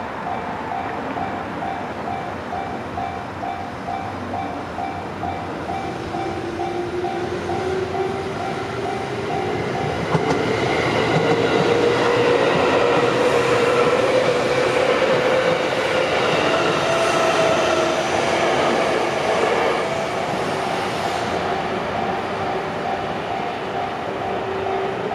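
Japanese level-crossing warning bell ringing in a steady, even rhythm while an electric train passes through the crossing. About ten seconds in, the train's running noise swells, with a motor whine rising and then falling in pitch, and it fades near the end as the bell carries on ringing.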